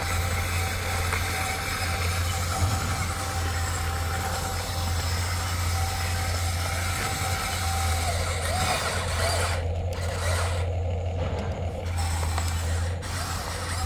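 Huina remote-control excavator running, with a steady low drone and motor hiss. The higher hiss briefly cuts out a few times in the last few seconds.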